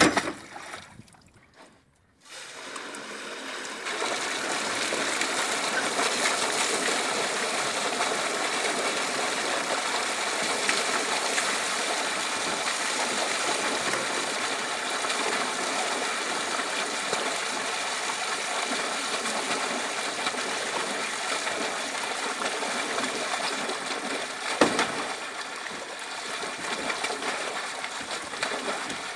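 Water gushing out of a discharge pipe and splashing onto the lake surface as fish are released from a stocking tank. It starts about two seconds in, builds to a steady rush within a couple of seconds and eases a little near the end, with a single knock shortly before that.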